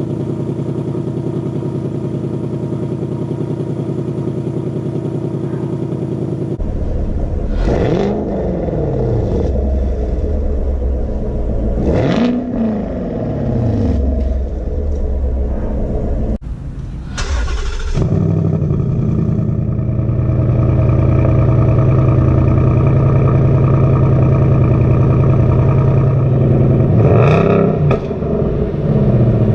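A V8 muscle car's stock dual-mode exhaust idling, then blipped several times in quick revs that rise and fall back to idle. The idle note changes abruptly a few times where separate takes are joined.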